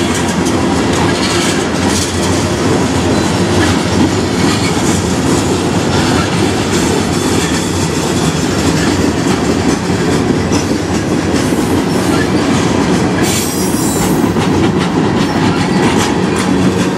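Mixed freight train's tank cars, boxcars and flatcars rolling past at close range: a steady rumble of steel wheels on rail with repeated clicks over the rail joints.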